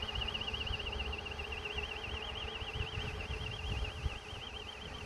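A high electronic tone warbling evenly up and down about six times a second, like an alarm siren, over a low, gusty rumble of wind on the microphone.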